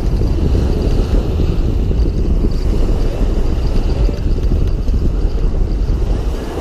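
Wind buffeting the camera microphone: a loud, steady low rumble with no distinct events.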